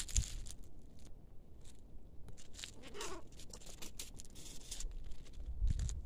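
Footsteps crunching on a dry dirt path strewn with fallen leaves, an uneven series of crackling steps and scuffs.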